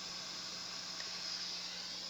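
858D hot-air rework station's handpiece fan blowing hot air, a steady hiss with a low hum under it.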